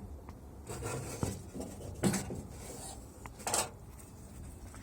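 Scraping and rubbing of hands against the metal retaining clip and trunk lid as the clip on the trunk lock cylinder is worked loose. A few faint clicks come through, with louder scrapes about two seconds in and again a second and a half later.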